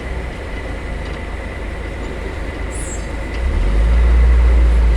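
Heavy diesel engines of a concrete truck mixer and concrete pump running with a low rumble that grows louder about three and a half seconds in.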